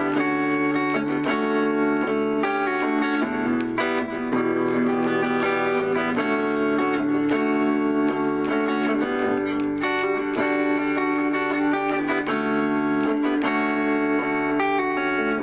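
Electric guitar played clean, slowly picking and letting ring a series of held chords and single notes, each change about a second apart, in a light-jazz, easy-listening style.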